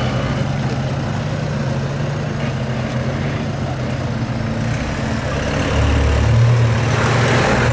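Jeep Wrangler engine running at low revs as it crawls over a rock ledge, growing louder for a moment about six seconds in.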